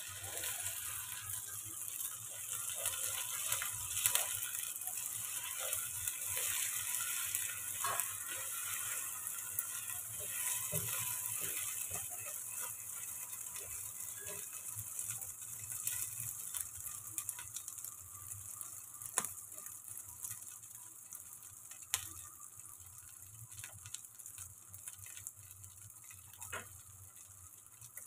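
Egg omelette frying in oil in a steel pan: a steady sizzle, with a plastic spatula scraping and clicking against the pan, and a few sharp taps in the second half. The sizzle slowly dies down toward the end.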